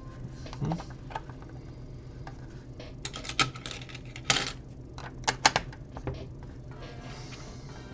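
Small plastic LEGO pieces clicking and rattling as they are picked up and pressed onto the build. The clicks are scattered and irregular, with a few sharper ones in the middle.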